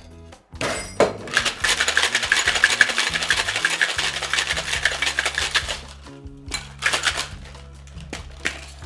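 Ice cubes rattling hard inside a metal tin-on-tin cocktail shaker, shaken fast for about five seconds after a sharp knock as the tins are seated together. A couple of short sharp rattles follow near the end.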